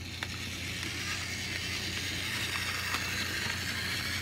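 Bachmann HO-scale 4-8-4 Northern model steam locomotive with an old pancake motor running along sectional track: a steady gritty whir of motor and gearing with faint clicks from the wheels on the rails, over a low steady hum.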